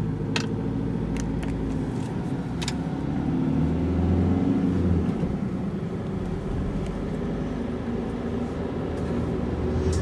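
Steady low rumble of engine and road noise inside a moving car's cabin, growing a little louder about four seconds in. A few light clicks come in the first three seconds.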